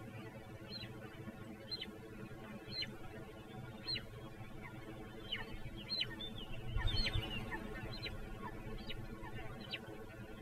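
Great crested grebe chick begging: thin high whistled calls, each falling in pitch, repeated about once a second and coming closer together past the middle. A brief low rumble comes in about seven seconds in.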